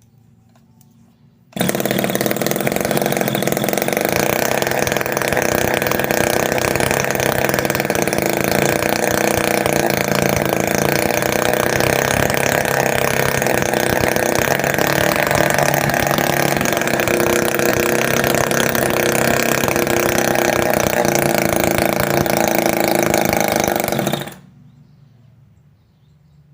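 Homemade mini two-stroke engine, converted from a refrigerator compressor, running at a steady high speed during its test run. It comes in suddenly about a second and a half in and cuts off suddenly near the end.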